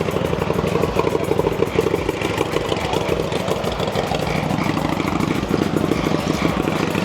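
A small engine running steadily with a rapid pulsing beat, growing a little stronger about halfway through.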